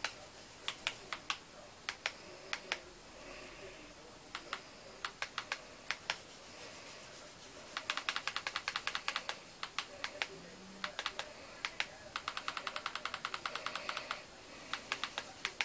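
Small sharp clicks of buttons being pressed by hand: single and paired clicks at first, then two fast even runs of about ten clicks a second.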